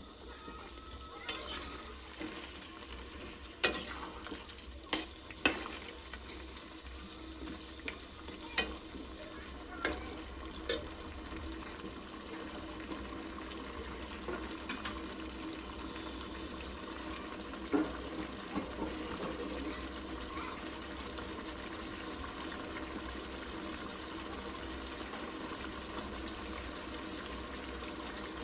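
Chicken and potato curry frying in a pan as it is stirred, with a handful of sharp clinks of the spoon against the pan in the first eleven seconds and one more later, over a steady sizzle.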